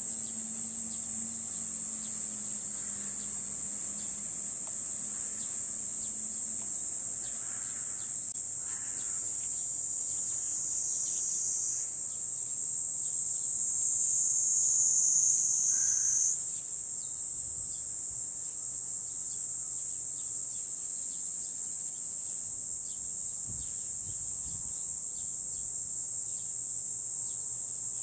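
Chorus of cicadas: a steady, high-pitched shrill drone that dips a little in pitch about twelve seconds in and jumps back up a few seconds later.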